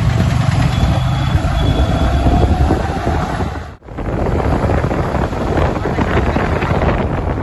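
Yamaha R15 V3 single-cylinder motorcycle engine running under way, with wind buffeting the microphone. The sound drops out briefly about halfway through, then wind noise and engine carry on.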